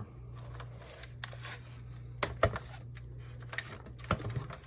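Scattered light clicks and knocks of a plastic LCD monitor case being handled and turned over while it is checked for screws, over a steady low hum.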